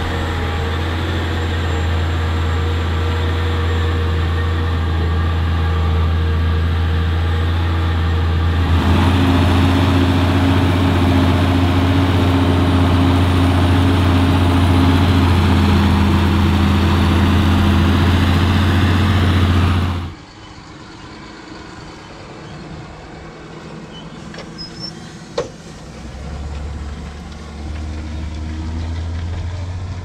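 Big diesel tractor engines pulling ploughs under load: a loud, steady engine drone that changes in tone about nine seconds in, where a John Deere 7530 is pulling its plough close by. About twenty seconds in the sound drops to a fainter engine drone under wind noise, with a single sharp click a few seconds later.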